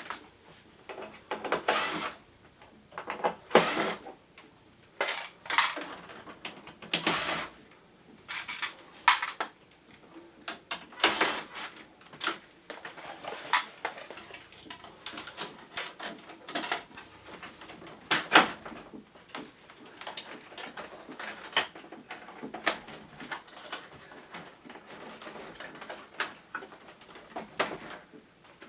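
Irregular clicks, clacks and knocks of hard parts being handled, unclipped and set down while a wall-mounted air conditioner is taken apart, some with a short rattle.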